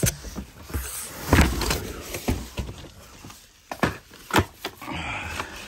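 Unpacking a vacuum cleaner from its cardboard box: scattered knocks and thuds, with the rustle of cardboard and packaging between them.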